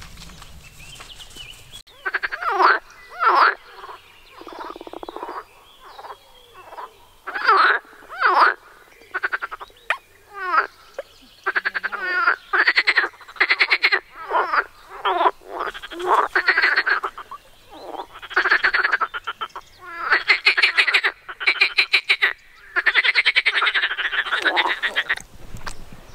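Frogs croaking in a pond: a long run of loud calls, one after another and sometimes overlapping, each a quick rattle of pulses. The calling starts about two seconds in and stops just before the end.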